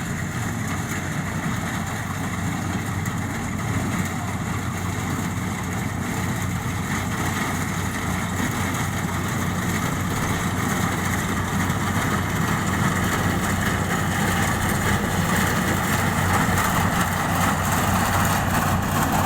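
Rice harvesting machine's engine running steadily, growing slightly louder over the second half.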